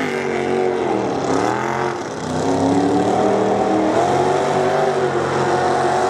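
Mud-bog truck engine revving hard at high rpm, its pitch swooping down about two seconds in and climbing back up as it powers through the mud pit.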